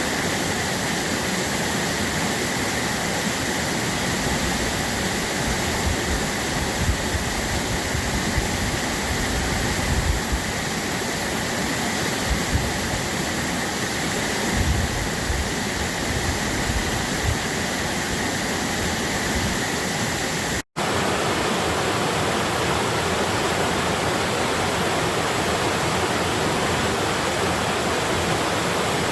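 Babbling water of a stream or small waterfall, running in a steady rush with some low rumbles. About two-thirds of the way in the sound cuts out for a split second, then the rushing resumes.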